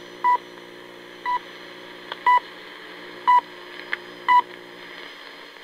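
Radio time-signal pips from a shortwave broadcast: short, identical beeps once a second, five of them, counting down to the top of the hour. They sound over the steady hiss and hum of shortwave reception.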